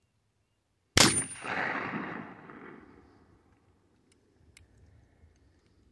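A single shot from a Pietta-made 1851 Navy black-powder percussion revolver about a second in: a sharp crack followed by an echo that dies away over about two seconds. A couple of faint clicks follow near the end.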